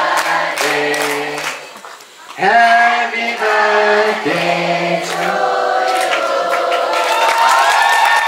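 A male singer singing live through a handheld microphone, holding long notes, with a short pause about two seconds in.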